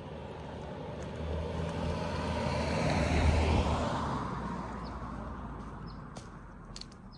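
A car driving past on a residential street, growing louder to a peak about three seconds in, then fading away.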